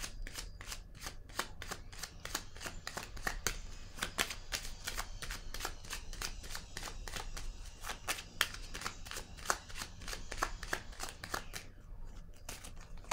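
A deck of tarot cards being shuffled by hand: a quick, uneven run of soft card clicks and flicks, several a second, that stops about a second before the end.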